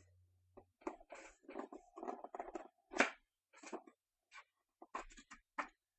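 Hands handling football trading cards and their packaging: irregular rustles, scrapes and light taps.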